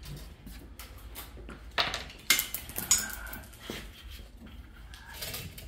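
Hand tools and hardware being handled: a few sharp metallic clinks and knocks, the loudest about two seconds in and again near three and four seconds.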